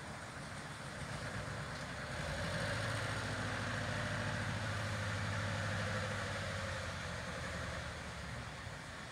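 A motor engine running with a steady low hum, growing louder about two and a half seconds in and fading back down near the end.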